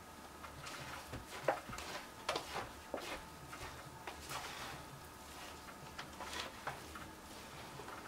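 A utensil stirring homemade seed-and-peanut-butter suet mix in a plastic tub: faint, irregular scrapes and clicks against the container.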